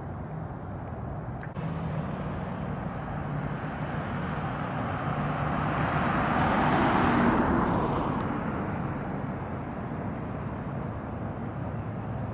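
A road vehicle passing by: its noise swells to a peak about seven seconds in and fades away by about nine, over a steady low hum of distant traffic.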